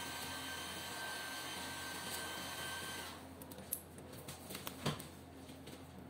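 A steady machine-like hum with hiss stops abruptly about three seconds in. After it come small clicks and handling sounds of a green SC fibre optic connector being worked in a blue SC adapter, with one sharper click near the five-second mark as the connector snaps home.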